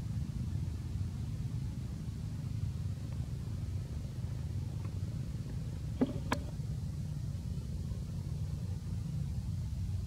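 A steady low rumble of background noise, with two short sharp clicks about six seconds in, a third of a second apart.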